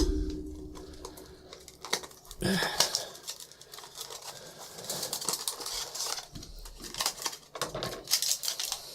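A small product box and its packaging being opened and handled by hand: a run of irregular clicks, crinkles and rustles, with a short ringing tone fading at the start.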